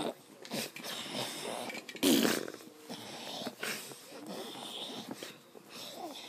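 Irregular, noisy breaths of a person having a seizure, with one louder, throaty breath about two seconds in.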